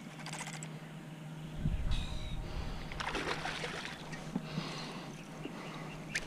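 Water sloshing and splashing against a fishing kayak, with low rumbles on the microphone and a short run of rapid clicks near the start.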